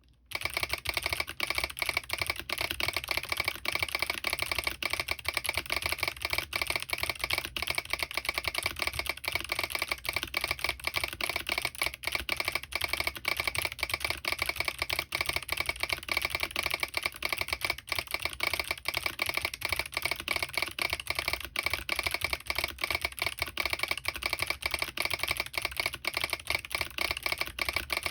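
Fast, continuous typing on a Smurve80 mechanical keyboard with lubed Kailh Box Jade clicky switches, DCS keycaps, an aluminium plate and no foam: a dense run of sharp clicks, each keypress also firing the board's click solenoid.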